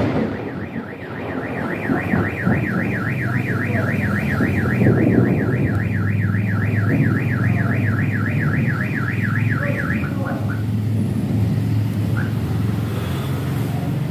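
Car alarm siren warbling rapidly up and down, about four sweeps a second, starting just as a thunder clap dies away and stopping after about ten seconds. A steady low hum runs underneath.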